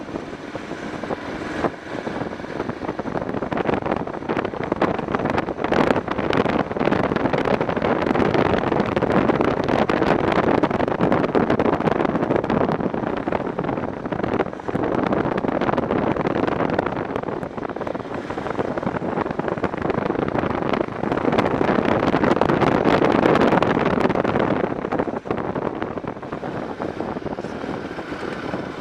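BMW F650 motorcycle on the move: wind rushing over the microphone mixed with engine and road noise. It swells louder twice.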